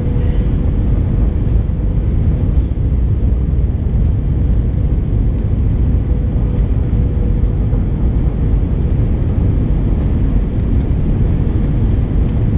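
Steady cabin noise of a jet airliner on its descent, heard from a seat over the wing: a loud, even rumble of engines and airflow with a faint steady hum above it.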